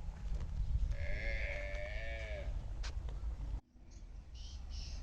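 A farm animal gives one wavering, bleat-like call about a second and a half long, over a low steady rumble. The sound cuts out suddenly for a moment just past halfway, then the rumble returns.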